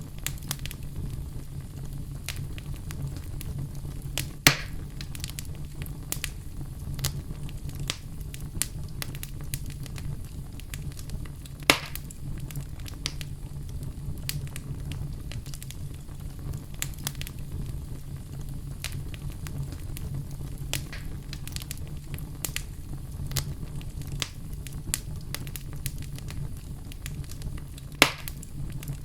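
Campfire crackling: scattered small snaps over a steady low rumble, with three louder pops, about four seconds in, near the middle, and near the end.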